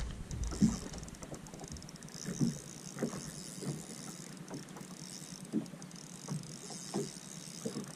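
Small waves slapping against a bass boat's hull, short irregular knocks roughly once a second over a steady hiss of wind and water.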